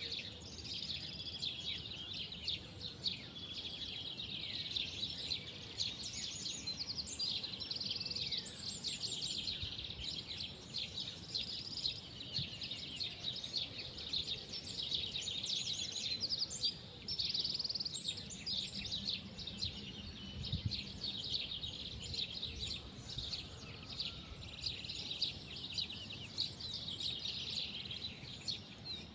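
Many small birds chirping and twittering at once in a dense, unbroken chorus of quick high notes and short trills, over a low steady background rumble.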